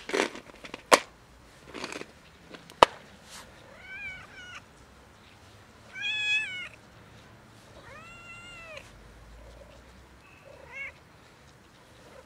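Tabby-and-white stray cat meowing about five times: two short meows about four seconds in, a louder, longer meow about six seconds in, another around eight seconds, and a brief one near eleven seconds. In the first three seconds, a few sharp clicks as the plastic food container is handled.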